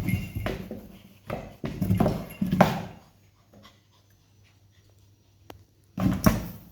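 Kittens scuffling and wrestling in a cardboard box: several bursts of scratching and rustling against the cardboard, a few seconds' lull, then another scuffle near the end.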